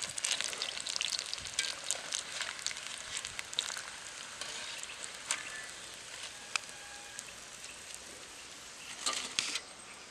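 Masala-coated raw banana strips deep-frying in hot oil in an iron kadai, sizzling with a dense crackle of small pops. The crackle is busiest in the first few seconds and then thins. A louder cluster of pops comes near the end, and then the sound stops abruptly.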